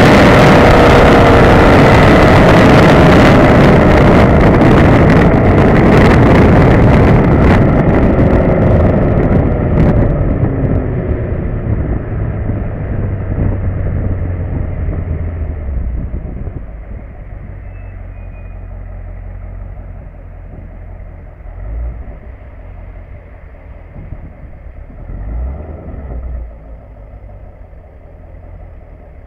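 Camaro LS3 6.2-litre V8 exhaust through Kooks headers, catted mid-pipes and a Borla S-Type cat-back, heard at the rear bumper while driving. At first it is loud with wind rush and a falling note as the car slows. About ten seconds in it drops to a low, quiet burble, with two brief swells near the end as light throttle is applied.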